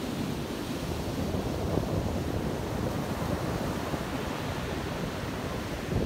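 Small waves breaking and washing up onto a sandy beach, with wind buffeting the microphone.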